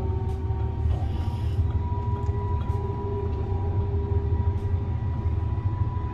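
Stuttgart U2 light-rail train running along the track, heard from inside at the front. It makes a steady low rumble with a steady whine held at two pitches.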